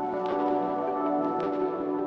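Background electronic music: the beat drops out and held synthesizer-like chords carry on, returning to the beat just after.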